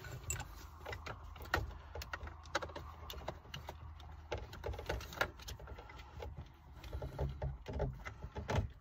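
Scattered light clicks and taps of hands working at plastic interior trim around a car's shifter, prying at a small plastic clip that won't come out.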